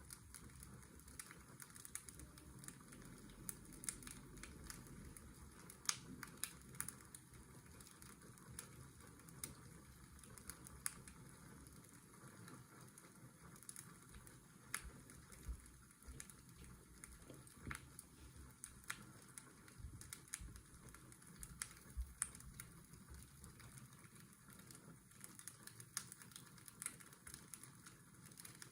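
Fireplace crackling, with sharp pops at irregular moments, over a steady low hiss and hum of washing-machine white noise.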